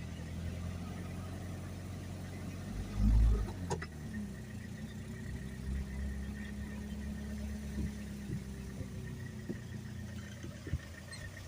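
Van engine running steadily with a low hum, a heavy low thump about three seconds in and a sharp click just after it.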